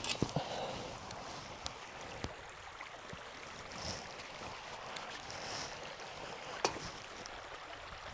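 Steady wind noise with a few faint, sharp clicks or knocks scattered through it.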